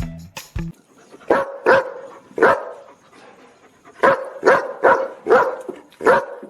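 Dog barking: a few barks, a pause, then a quicker run of five or six barks.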